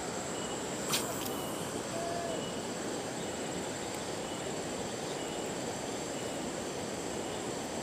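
Steady hiss of rain falling on a river, with a thin, steady, high insect whine and one sharp click about a second in.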